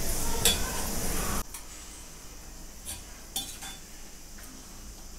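A steel slotted ladle stirring brinjal pieces in simmering tamarind liquid in a kadai, with a steady sizzle and scraping that cut off suddenly about one and a half seconds in. After that only a few light clinks of the ladle against the pan remain.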